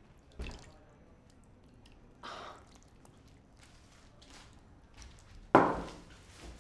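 Thick sauce poured from a gravy boat over a person's head and face, with wet squishing and dripping and her short breathy gasps. A few sudden noisy bursts stand out, the loudest near the end, fading away quickly.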